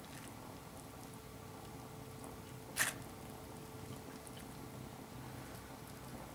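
Faint soft squishing and small clicks as two forks pull apart a tender, slow-roasted pork knuckle. One brief louder noise comes about three seconds in, over a faint steady hum.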